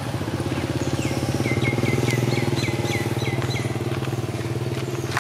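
A small engine running steadily, with a quick run of short, high chirps, each falling in pitch, from a bird through the middle.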